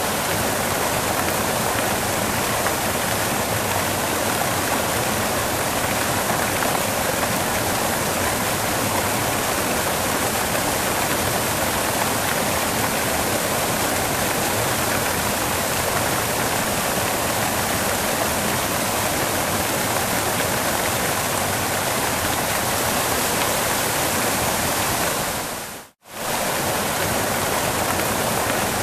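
Waterfall: a steady, dense rush of falling water. It fades out to near silence for a moment near the end, then comes straight back.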